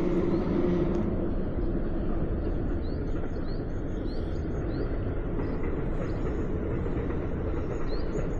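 Japanese tit singing a repeated run of short, high, quick-rising notes, starting about three seconds in, over a steady low rumble.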